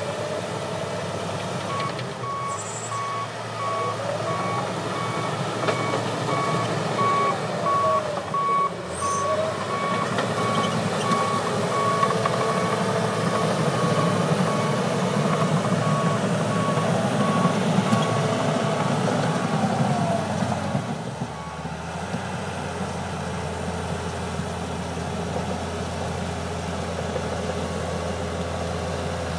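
John Deere 700H bulldozer's diesel engine working under load while its backup alarm beeps steadily as it reverses. The beeping stops about three-quarters of the way through, and the engine drops back to a lower, steady run.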